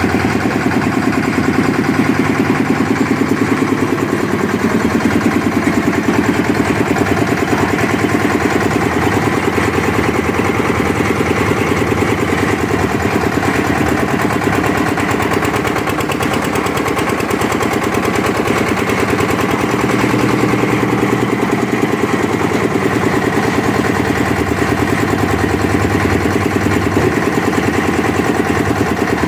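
A concrete mixer's engine running steadily, with rapid, even pulses throughout.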